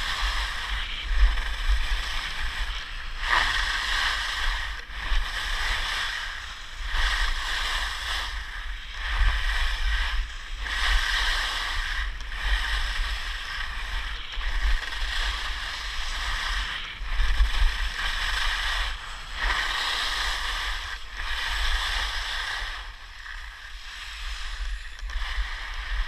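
Skis hissing and scraping over snow through a run of turns, the noise swelling and fading every second or two, with wind rumbling on the microphone.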